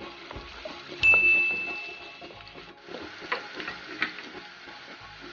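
Chopped onions sizzling in oil in a nonstick pot, stirred with a wooden spatula that scrapes and taps the pan now and then. About a second in, a single high ding rings out for about a second.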